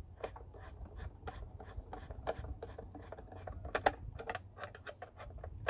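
Irregular clicks and scrapes of hard plastic as the Black & Decker 36-volt battery pack case is handled and pressed together, with a sharper pair of clicks just before four seconds in.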